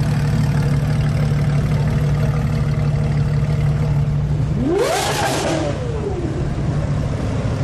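A car engine revved once about five seconds in, its pitch climbing and falling back within about a second and a half, with a rush of exhaust noise at the top. Before it there is a low, steady engine hum.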